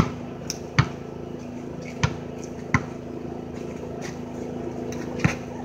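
Basketball bouncing on a concrete driveway: about five sharp thuds at uneven intervals over a steady low hum.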